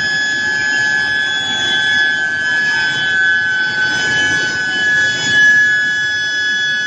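Steady high-pitched whine of an induction heating furnace's coil and medium-frequency power supply heating square steel billets, over a steady mechanical hum of the production line.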